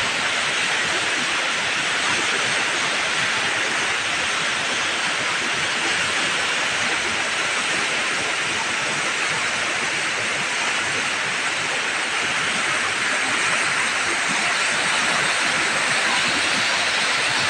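A river in flood after heavy rain, its fast, swollen water rushing and churning past in a steady, loud torrent.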